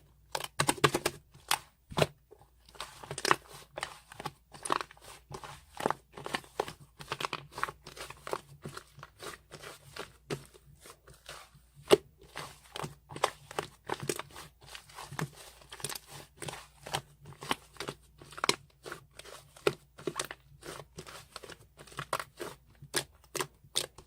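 Hands squeezing and kneading a squishy toy (malang-i), giving a dense, irregular run of short crackles and clicks.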